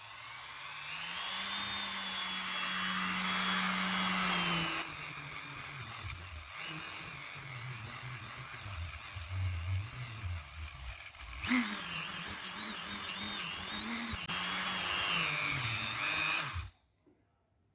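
Dremel rotary tool spinning up to a steady whine, then its hook-and-loop sanding pad grinding on the metal anvil of a bench vise, the motor's pitch dipping and wavering under load as machining lines are sanded off. The tool shuts off about a second before the end.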